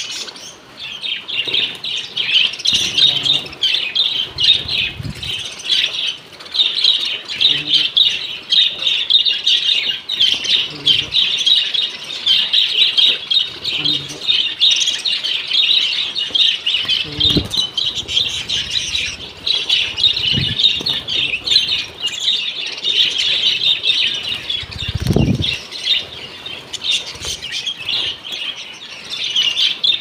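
A flock of budgerigars chattering without pause in quick, high chirps, with wings fluttering in a wire-mesh carrier. A few dull thumps come through, the loudest about 25 seconds in.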